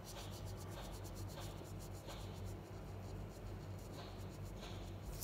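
Faint, irregular scratchy strokes of colouring being rubbed onto a velvet paper sheet, over a low steady hum.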